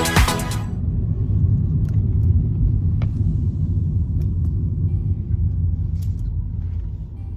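Low steady rumble of a car on the road, with a few faint clicks; electronic music cuts off in the first second.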